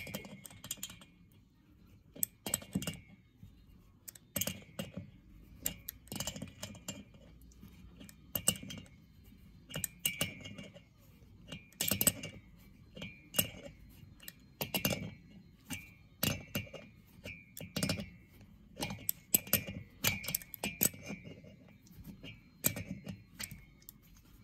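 Pliers clicking against a hex thread die as the die is worked back off a VW Beetle cylinder head's exhaust stud. There is a sharp metal click with a short ring about every second, as the pliers grip, turn and are reset.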